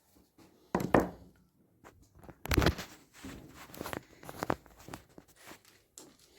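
Irregular knocks and clatter from work on a washing machine during a bearing replacement, with two loud knocks about a second in and again about two and a half seconds in, then a run of lighter knocks and clicks.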